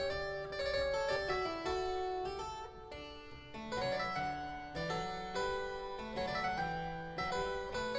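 Background music: a keyboard instrument playing a melody over chords, with notes struck one after another.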